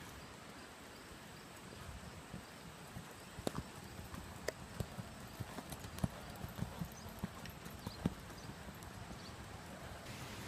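Horse's hooves striking the dirt of an arena as it lopes, an uneven run of hoofbeats that starts about two seconds in, over a steady background hiss.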